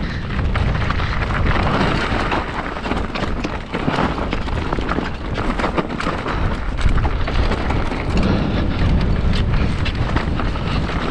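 Mountain bike riding a dirt trail: wind buffeting the microphone and tyres rumbling over the ground, with a constant stream of small knocks and rattles from the bike.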